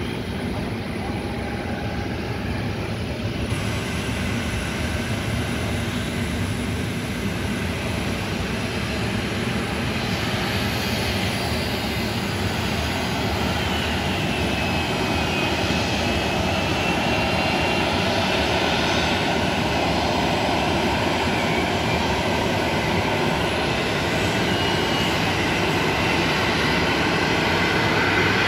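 Boeing 737-900ER's CFM56 turbofan engines running at taxi power: a steady jet rumble that grows gradually louder as the airliner approaches, with a thin turbine whine that wavers in pitch about halfway through.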